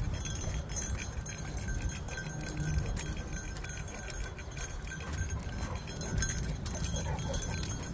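Dog's collar tag and leash clip jingling and clinking irregularly as the dog walks, over a steady low rumble.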